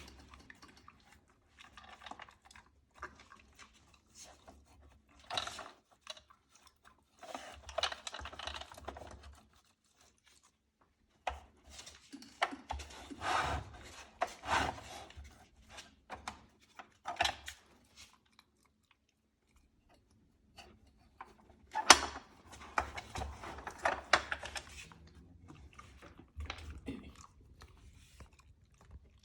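Corgi puppy working a treat puzzle toy: bursts of scraping and clicking as it moves the pieces, with chewing on the treats, broken by short pauses.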